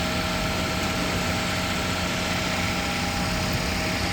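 Heavy construction machinery running steadily, most likely a concrete transit mixer truck's engine with its mixing drum turning, a dense engine noise with a low hum and a few thin steady whine tones over it.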